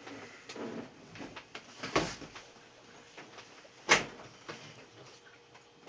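Scattered knocks and scraping as a Haier HLP23E portable washing machine is handled and tipped over onto its side, with two sharp knocks about two and four seconds in, the second the loudest.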